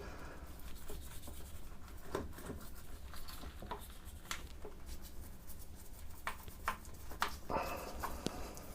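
Faint rubbing and scratching with scattered light clicks and taps, as the Naumann 65 vintage sewing machine is scrubbed and wiped down with solvent.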